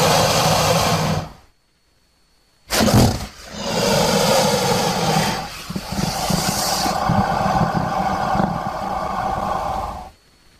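Crocodile calling with a low, rough sound. The first call breaks off about a second and a half in; after a short silence another starts sharply near three seconds and runs on until shortly before the end.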